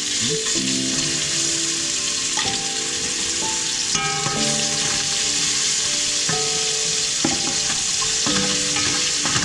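Small pieces of red seasoned meat sizzling as they fry in hot oil in an aluminium pot, with a wooden spatula scraping and stirring them around.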